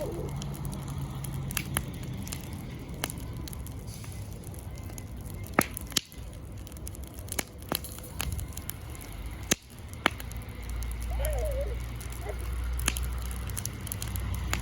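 Wood campfire crackling, with sharp pops scattered irregularly; the loudest pop comes about five and a half seconds in. A low rumble runs through the second half.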